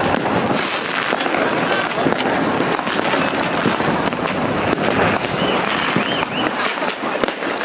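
Firecrackers and fireworks cracking and banging over the hubbub of a large outdoor crowd, with a few short whistles about six seconds in.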